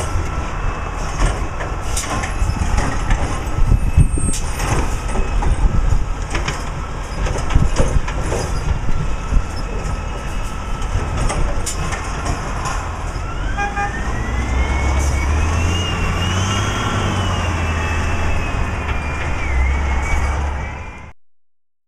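Recycling truck's diesel engine running, with scattered clanks and knocks, then revving up about two-thirds of the way through and holding high before the sound fades out near the end.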